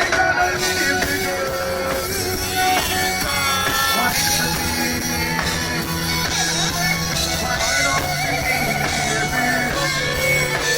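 Live band playing a dancehall song, with a steady bass line under held instrumental notes.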